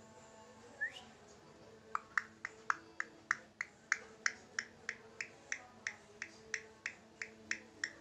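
Indian ringneck parakeet giving a short rising whistle, then a long, evenly paced run of sharp clicking chirps, about three a second, over a faint steady hum.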